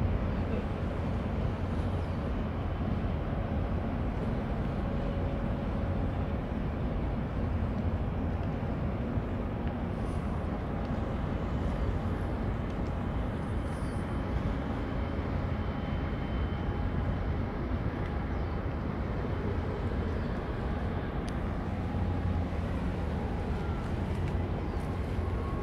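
A large container ship's engines running as it passes close by: a steady low rumble with a faint steady hum above it.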